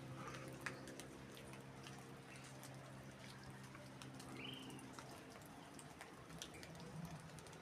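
Light rain with scattered drips ticking, faint. A steady low hum runs under it and stops about five seconds in, and a single short bird chirp sounds about four and a half seconds in.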